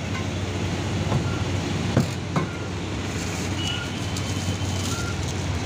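Street traffic noise with a steady low hum, and two sharp knocks about two seconds in.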